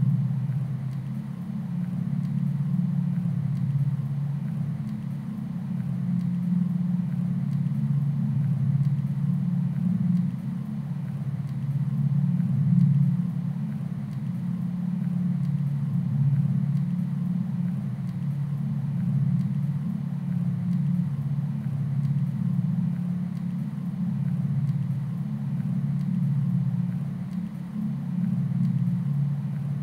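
A steady low rumbling drone that swells and eases slightly, with no beat or distinct strikes.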